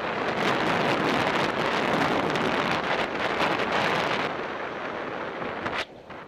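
Wind rushing over the microphone of a camera on a racing bicycle at speed: a dense, steady roar that eases a little about four seconds in and drops off sharply near the end.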